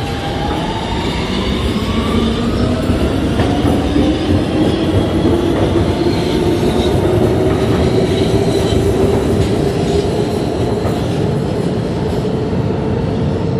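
New York City Subway R160 train pulling out of the station. Its propulsion whine rises in pitch over the first several seconds as it accelerates, then levels off, over steady wheel and rail noise.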